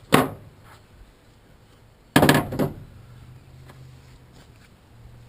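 A loud sharp knock about two seconds in that dies away over about half a second, after a smaller knock at the very start, then a faint low steady hum.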